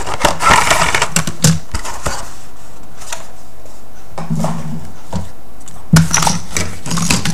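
Plastic model sprues and cardboard packaging being handled, with quick clicks, rustles and light knocks in two busy clusters, one at the start and one near the end.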